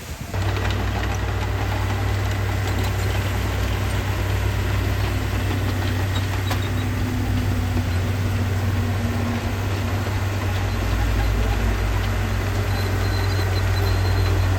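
Heavy diesel engine of earthmoving equipment running steadily at low revs with a deep hum, growing a little louder and deeper about ten seconds in.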